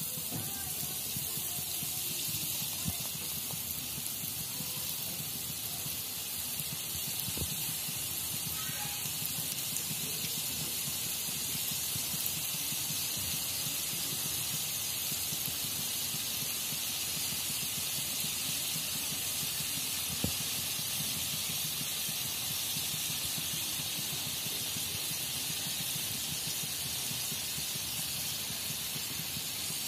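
A sel roti ring, a rice-flour batter ring, deep-frying in hot refined oil in a wok: a steady sizzle, with a few sharp pops.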